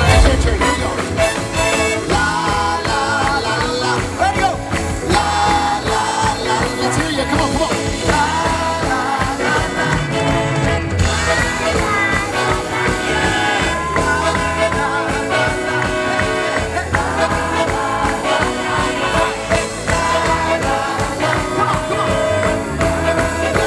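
Live swing band music with a steady beat and a melody line.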